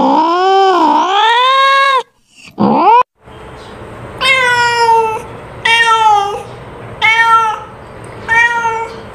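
Domestic cat meowing: a long meow that wavers in pitch, then a short rising meow about two and a half seconds in, followed after a brief silence by four short meows about one and a half seconds apart.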